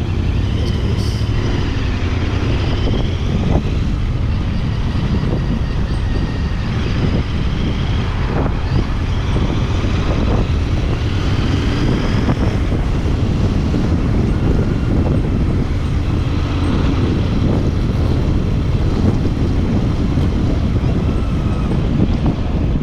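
Royal Enfield Interceptor 650's parallel-twin engine running at road speed, with steady low wind rumble and the sound of city traffic, picked up by a pocket recorder worn on the rider's body.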